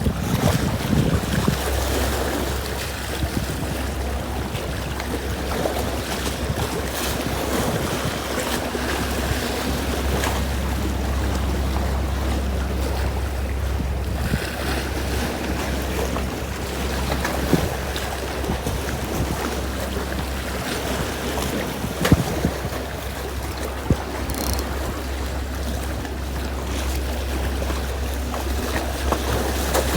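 Seaside wind buffeting the microphone along with the wash of waves, over a steady low drone, with a couple of faint clicks partway through.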